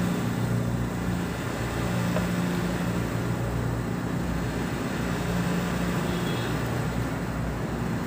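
Steady low machine hum: a deep drone with a higher note above it that swells and fades every second or two.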